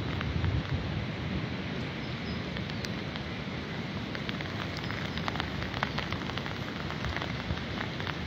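Wind blowing through bare trees ahead of an approaching storm, with low wind buffeting on the microphone and scattered sharp ticks.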